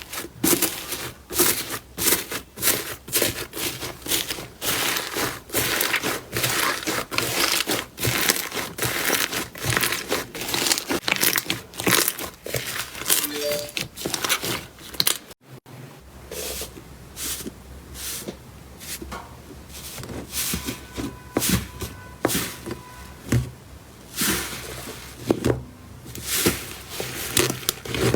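Slime being squeezed and pressed by hand, giving dense, irregular crackling clicks and pops. There is a brief break about halfway through, then the crackling carries on.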